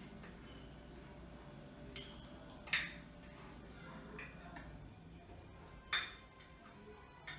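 Knife and fork clinking against a ceramic plate while cutting a small piece of lasagna: about five short clinks, the loudest near three seconds in and another strong one about six seconds in.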